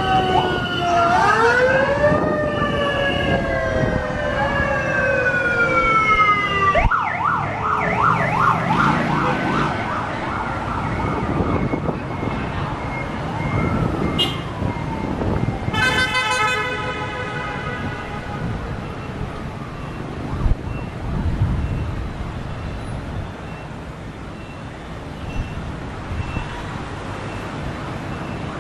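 Several motorcade escort sirens wail together, rising and falling, over busy street traffic. They give way to a fast pulsing siren and then a long horn blast about halfway through.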